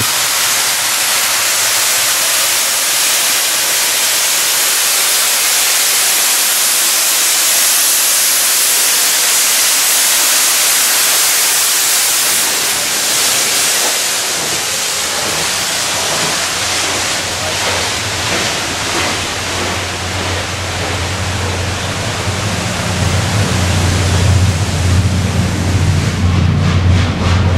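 Steam locomotive 60163 Tornado, a 4-6-2 A1 Pacific, blowing off steam in a loud, steady hiss that eases after about thirteen seconds. A low rumble builds near the end.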